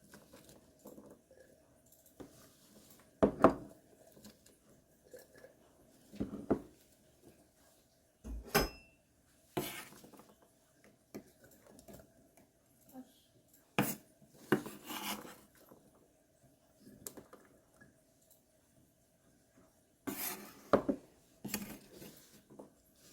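Kitchenware being handled: irregular knocks and clinks of utensils against dishes, about a dozen sharp ones, with one ringing clink about eight seconds in. A faint steady hum lies underneath.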